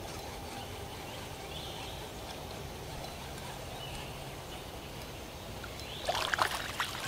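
Faint steady water-and-air background while a hooked bluegill is reeled in, then about six seconds in a short cluster of sharp splashes and clicks as the fish thrashes at the surface and is lifted out.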